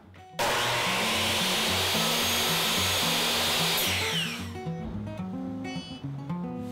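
Power saw cutting through painted wood trim molding, a loud steady noise that starts suddenly and winds down with a falling whine about four seconds in. Acoustic guitar music plays underneath and goes on alone afterwards.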